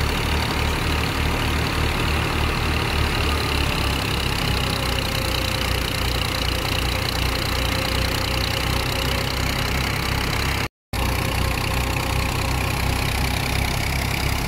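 Fiat 480 tractor's three-cylinder diesel running steadily at working speed, driving a threshing machine whose drum and fan add a continuous whirring rush. The sound drops out for a split second about eleven seconds in.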